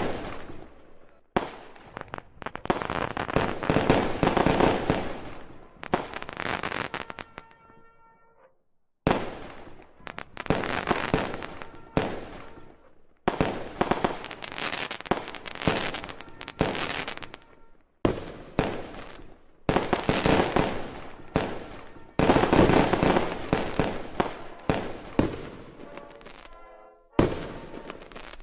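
Aerial fireworks display: shells bursting one after another, each a sudden bang trailing off into dense crackling, with a brief lull about eight seconds in.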